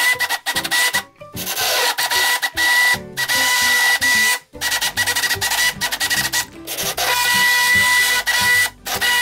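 Hand-held immersion blender running in a pan of cooked pumpkin and vegetable soup: a steady motor whine over a rough churning noise, stopping for a split second about four times and starting again as the vegetables are puréed.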